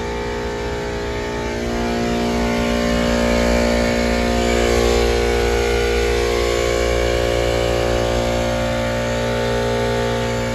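A 460-volt three-phase Copeland scroll compressor running with a steady, many-toned hum, getting a little louder about two seconds in.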